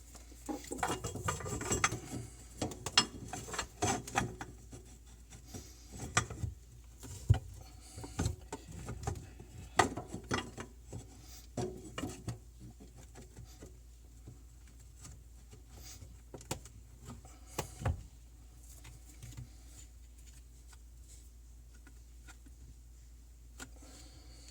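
Clicks, knocks and rubbing of a Waste King garbage disposal being lifted and twisted by hand onto its sink mounting ring. The handling noises are busy for about the first twelve seconds, then thin out, with one last sharp knock at about eighteen seconds.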